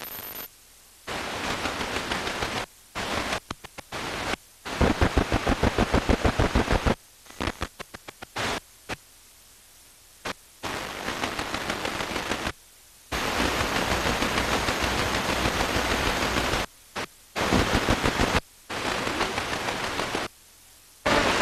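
Sony XDR-F1HD FM tuner stepped up the band through empty and weak channels: stretches of steady static hiss broken again and again by sudden short silences as the frequency changes. About five seconds in, a run of rapid pulses at about seven a second.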